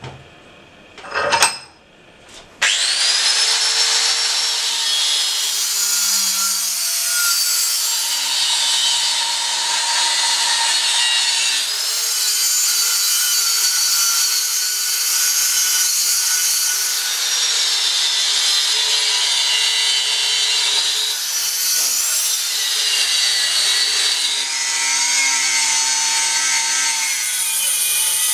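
A short clack about a second in, then a 4-inch angle grinder spins up and cuts into a steel blade held in a vice with an abrasive cutting disc: a continuous high whine that sags in pitch whenever the disc bites harder into the metal and then recovers.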